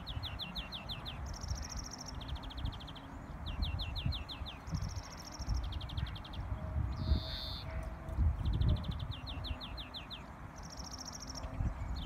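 A greenfinch singing: a string of short, rapid trills, each under a second, switching between two pitch levels, with one drawn-out wheeze about seven seconds in. Wind rumbles low on the microphone underneath.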